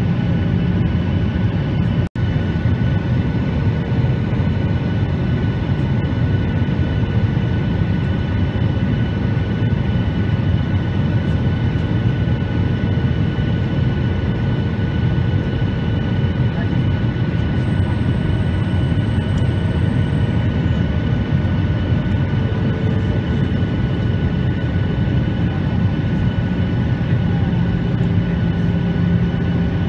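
Steady jet airliner cabin noise in flight, engines and rushing air heard from a seat over the wing, with a constant high whine over a low rumble. The sound cuts out for an instant about two seconds in.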